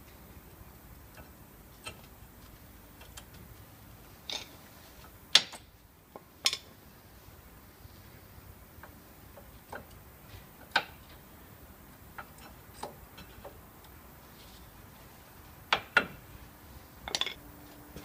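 Irregular sharp metallic clicks and taps from new brake pads and their metal clips being handled and seated in a Nissan Almera's front brake caliper bracket. The loudest come about five seconds in and in a cluster near the end.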